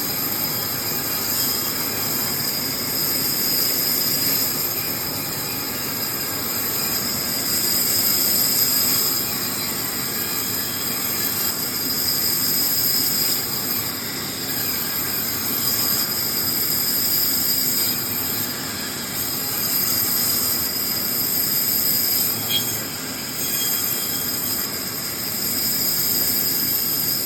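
A woodworking power tool running steadily, with a constant high-pitched whine over an even rushing noise.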